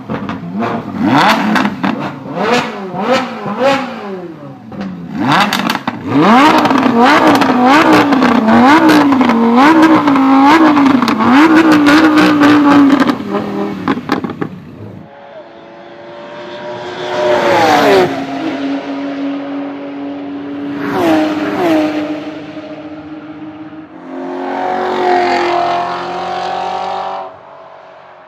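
Supercar engines: a run of sharp rev blips with crackles, then several seconds of rapid revving up and down. In the second half, cars drive past, each with its engine pitch dropping as it goes by.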